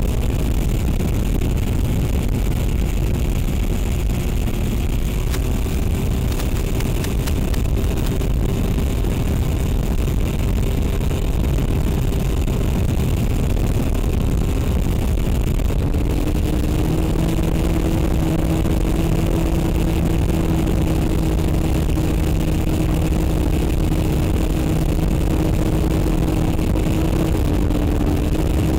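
An RC airplane's electric motor and propeller droning steadily under wind rush. The drone steps down to a lower pitch about halfway through, with a throttle change.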